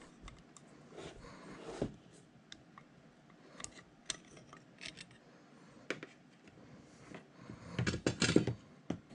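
Snap ring pliers clicking and scraping against a large internal snap ring in the cast housing of a Dorian right-angle milling attachment as the ring is worked out. Scattered light metal clicks, with a denser, louder clatter about eight seconds in.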